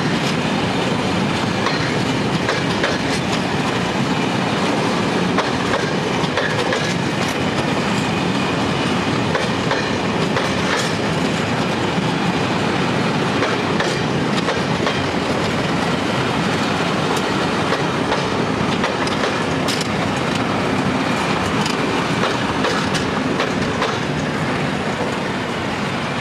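Freight train of tarpaulin-covered wagons rolling past, the wheels clicking irregularly over rail joints amid steady rumble, easing slightly near the end as the last wagons go by.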